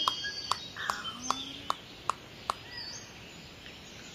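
Bird-like chirps over a run of sharp clicks, about two or three a second, that fade away about two and a half seconds in.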